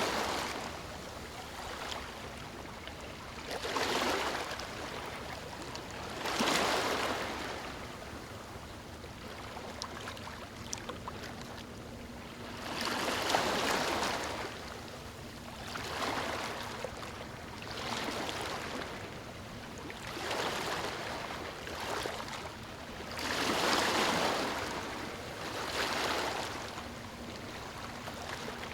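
Sea waves breaking on a beach: a rush of surf swells and falls away every two to four seconds over a steady wash of water.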